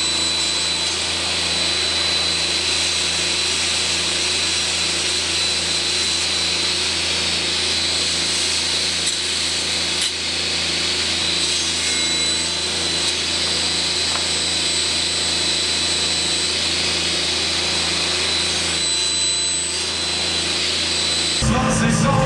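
Table saw running steadily with a high whine, crosscutting a small hardwood block to length on a sled. It cuts off abruptly near the end.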